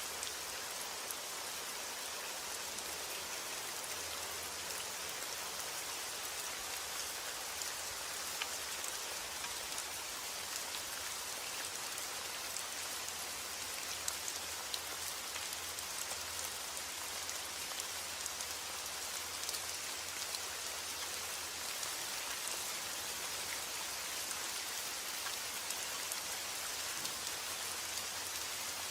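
Steady rainfall, an even hiss with scattered individual drops ticking through it.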